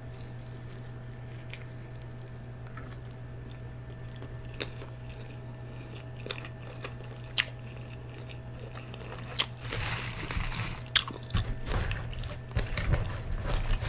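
Close-miked eating of crispy fried food: a few faint mouth clicks at first, then from about two-thirds of the way through, crunchy bites and chewing, over a steady low hum.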